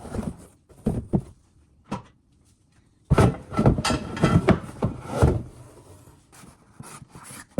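Kitchen things being handled and packed into a cardboard box: a few separate knocks, then a burst of clattering and rustling about three seconds in that lasts a couple of seconds.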